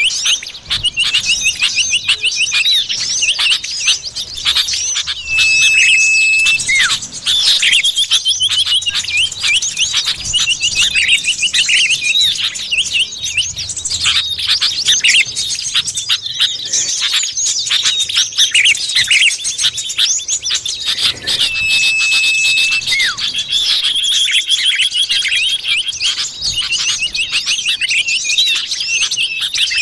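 Common ioras (cipoh) calling densely, several birds overlapping: rapid chirping trills and short sweeps, with a held whistle twice. This is a lure recording of iora calls used to draw the birds in.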